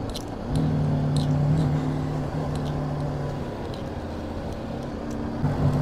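Motorcycle engine running at a steady speed while riding, with wind and road rush. The drone rises about half a second in, eases off after about two seconds, and swells again near the end.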